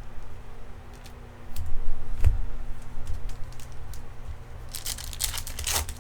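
Baseball card pack being handled and its wrapper torn open, with a few soft knocks in the first half and a burst of crinkling near the end.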